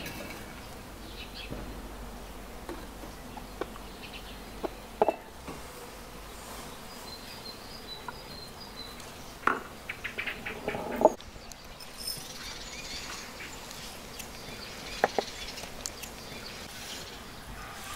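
Outdoor ambience with insects buzzing, broken by a few short knocks and clinks of glass bowls and utensils being handled on a wooden table, loudest in a cluster about ten seconds in and again briefly around fifteen seconds.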